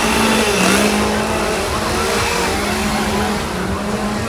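Tour tram running: a steady low hum that shifts slightly in pitch now and then, over a broad rushing noise.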